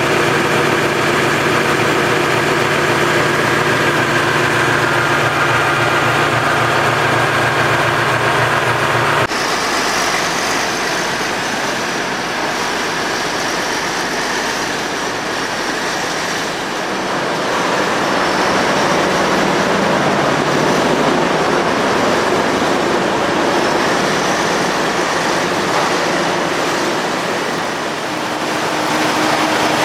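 Tractor engine and PTO-driven Demuth drum wood chipper running steadily. The sound changes abruptly about nine seconds in to a noisier, hissier running sound.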